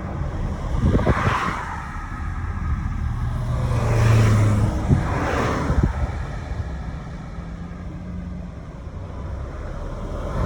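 Road noise of a moving car, a steady low rumble, with other vehicles passing close by as swelling whooshes that build and fade: about a second in, twice between four and six seconds, and again at the end.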